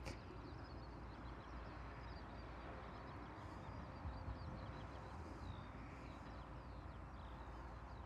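Faint outdoor background: small birds chirping here and there over a low, steady hiss.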